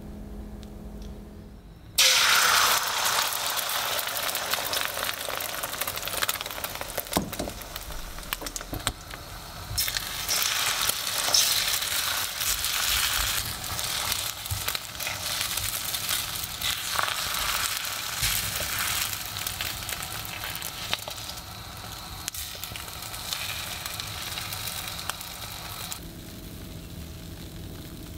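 Beaten egg hitting hot oil in a carbon-steel wok about two seconds in, then frying with a loud, steady sizzle and a few sharp clicks. The sizzle drops to a quieter level near the end.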